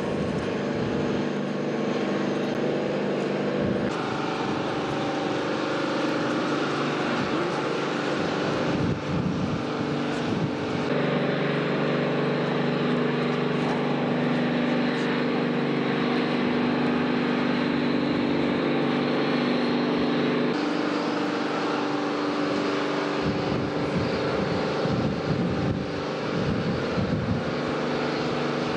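Steady mechanical drone of the launch-pad erector raising a Soyuz rocket: several constant hums over a hiss, with wind buffeting the microphone. The sound shifts abruptly three times.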